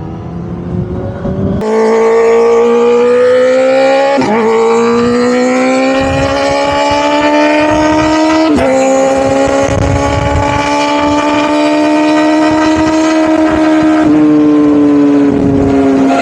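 Kawasaki Ninja ZX-4RR's inline-four engine through a newly fitted aftermarket exhaust, opened up hard: after a quieter first second and a half it jumps to a loud, high engine note that climbs slowly, with quick breaks in the note about four and eight and a half seconds in as it shifts, then drops back near the end as the throttle eases.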